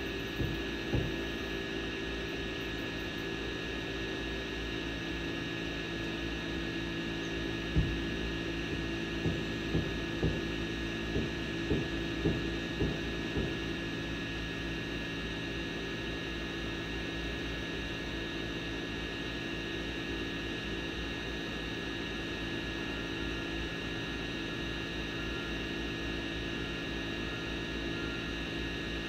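Camera drone's motors and propellers humming steadily in flight, a constant drone with several high steady tones over a lower hum. A run of short low thumps comes about a third of the way in.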